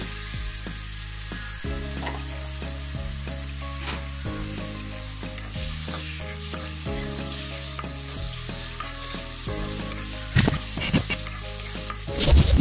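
Sliced onions sizzling in hot oil in a steel pan as they are stirred with a spatula. Near the end the spatula clatters against the pan several times.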